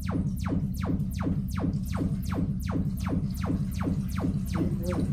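Sonos Play:5 speaker playing its Trueplay room-tuning test sound: a rapid, even series of falling sweeps, about four a second, over a steady low drone.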